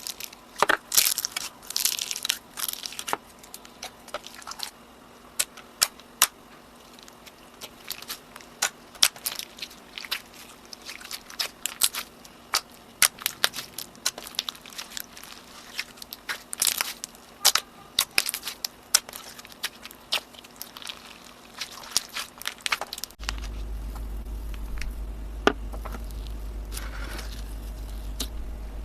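Slime being squeezed and pressed by hand, giving rapid, irregular crisp crackles, clicks and pops. Near the end a steady low hum comes in and the clicks grow sparser.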